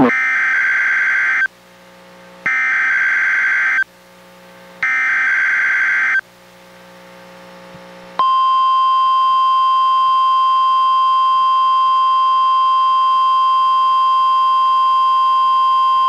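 NOAA Weather Radio Emergency Alert System test signal from a Reecom R-1630 weather radio: three digital SAME header bursts, each about a second and a half long with short gaps between. About eight seconds in comes the single steady 1050 Hz warning alarm tone, sounded as a test of weather radio receivers' alarms.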